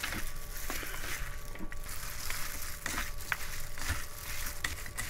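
A plastic-gloved hand tossing and squeezing a wet, spicy seasoned mix of raw skate and water parsley in a stainless-steel bowl: squelching, the glove crinkling, and irregular small clicks.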